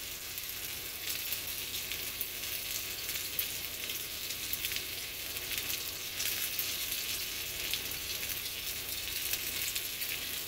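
Two New York strip steaks frying in oil in a pan: a steady sizzle with many fine crackling pops.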